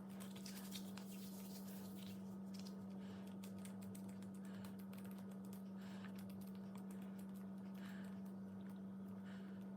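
Slime being pressed and pulled apart by hand, giving faint, irregular sticky clicks and crackles, over a steady low electrical hum.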